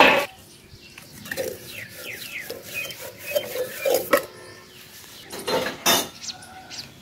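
Metal pots and dishes being washed by hand, clinking and scraping against each other, with a loud clank at the very start and more knocks about four seconds in and again near six seconds.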